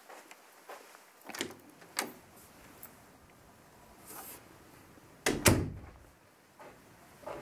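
Interior six-panel closet door under the stairs being opened, with clicks of the knob and latch. A little after five seconds comes a louder thump as the door is shut.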